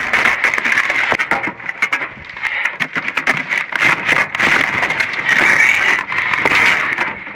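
Junk being shifted around in a dumpster: irregular knocks, clatters and rustling as boxes and debris are handled, over a steady hiss.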